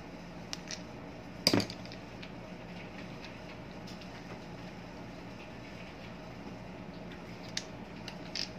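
Pliers clicking against the metal shaft end and hardware on an electric fan's motor: one loud sharp metallic click about one and a half seconds in, with a few lighter clicks near the start and near the end. A steady low hum runs underneath.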